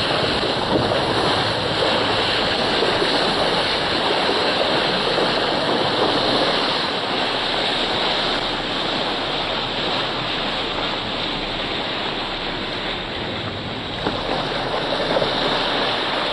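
Steady rushing of sea water and wind, an even noise that holds throughout without a break.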